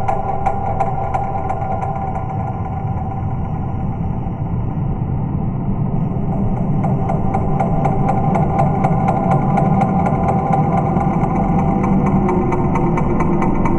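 Layered electronic sound piece: a city field recording of an engine running steadily, a low rumble with a held mid tone. Over it sounds a fast regular ticking of about four clicks a second, which drops away about four seconds in and comes back a couple of seconds later.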